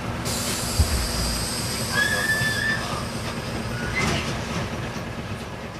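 Isuzu Cubic KC-LV380N bus's V8 diesel idling at a stop, heard from inside the bus. A hiss of compressed air runs for about two seconds, with a short high tone near its end, and a car passes about four seconds in.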